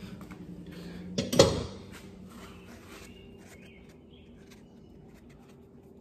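A sharp clatter a little over a second in, like a metal hand tool knocked or set down against the outboard, followed by small clicks and rag-handling sounds as the oil filter is worked loose. A faint steady hum runs underneath.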